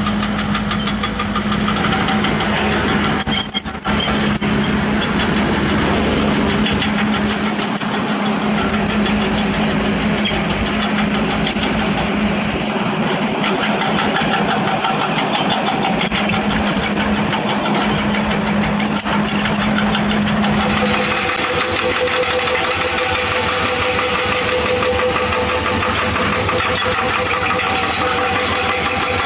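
Diesel engines of Komatsu crawler earthmovers (PC200 excavators and a D31P dozer) running steadily under load. There is a single knock about three and a half seconds in, and the engine note changes about two-thirds of the way through.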